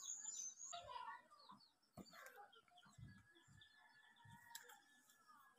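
Near silence with faint bird calls in the background and a light click about two seconds in.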